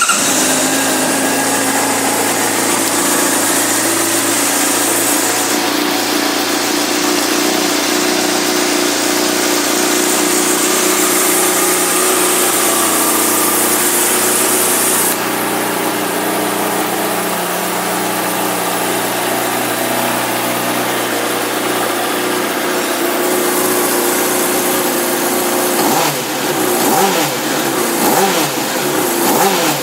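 Honda CBR600RR sport bike's inline-four engine idling steadily, then revved in a series of quick throttle blips over the last few seconds.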